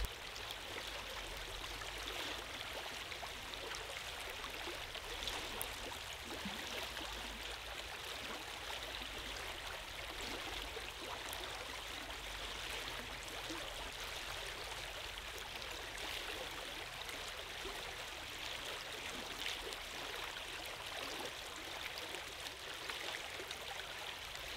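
A small shallow stream running over rocks, a steady, even rush of water.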